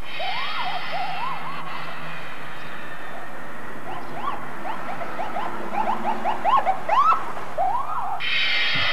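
Title-sequence sound effects: many short chirps that rise and fall in pitch, coming faster and louder in the second half, over a steady hiss.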